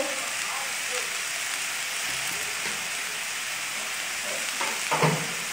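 Chopped tomatoes frying in hot mustard oil in a steel wok: a steady sizzling hiss. One brief louder sound comes about five seconds in.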